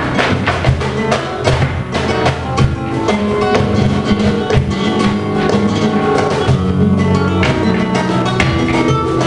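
Live flamenco played on an acoustic guitar, with sharp percussive strikes over it that come thick in the first two seconds and thin out later.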